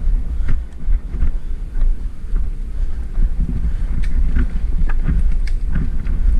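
Wind buffeting the microphone, a heavy uneven rumble, with scattered light clicks and knocks, more of them in the second half.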